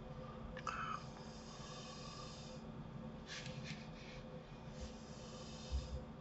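Faint breathing close to the microphone, two breaths about a second and a half long, with a few soft clicks, a low thump near the end and a steady low hum underneath.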